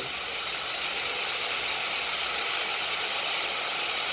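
Breaded chicken wings shallow-frying in oil in a cast-iron skillet: a steady, even sizzle.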